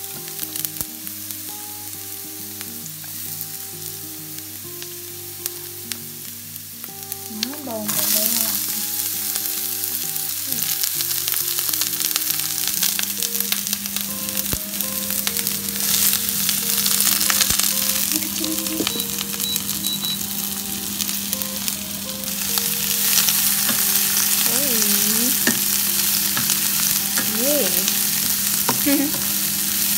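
Minced garlic sizzling in oil in a ceramic nonstick frying pan. About eight seconds in, sliced onion goes into the pan and the sizzle gets much louder, then the onion is stirred and scraped with a spatula.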